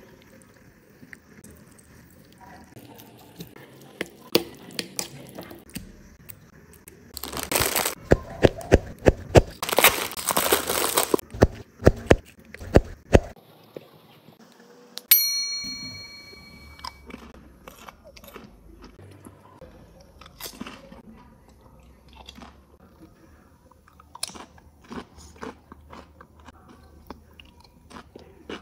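Crisp chips crunching, loud and dense for several seconds. About halfway through comes a bright ringing chime lasting a couple of seconds. After that, scattered crunches follow as chips are bitten and chewed.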